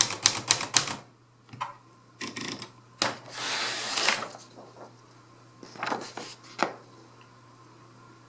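Hermes Rocket manual portable typewriter: keys struck in a fast run of about six clacks a second for the first second, then a few separate clacks, a longer sliding rattle about three seconds in, and a couple more clacks near the six-second mark.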